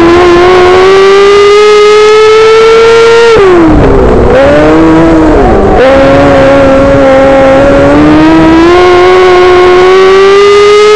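Micro sprint car's engine heard very loud from the cockpit during a dirt-track race: the revs climb steadily for about three seconds, drop sharply as the driver lifts for a turn, then pick up again about six seconds in and climb steadily once more down the straight.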